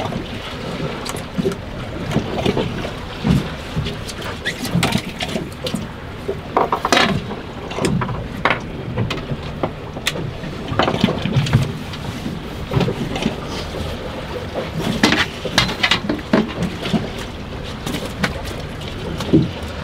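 Wind on the microphone and waves slapping against a drifting boat's hull, with irregular knocks and clatter as a heavy fish is reeled up on a conventional rod and reel.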